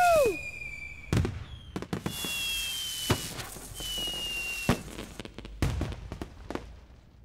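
Fireworks display: a string of sharp bangs and crackling bursts, with two high whistles that fall slightly in pitch, dying away near the end.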